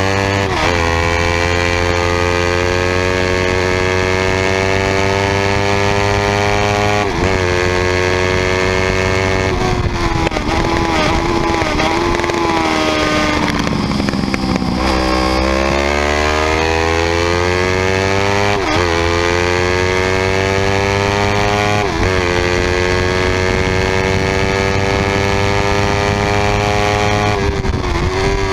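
Yamaha YZF-R3's parallel-twin engine at high revs on track, pitch climbing through the gears with a quick drop at each upshift. Around the middle the revs fall and waver as the bike slows through a corner, then they climb again through several more upshifts.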